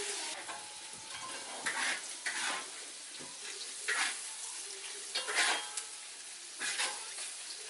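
Food sizzling in a large iron wok, with a metal spatula scraping and stirring against the pan in a few irregular strokes.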